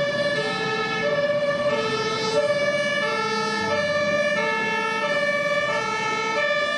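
Two-tone hi-lo emergency siren, switching back and forth between a higher and a lower pitch with each held about half a second.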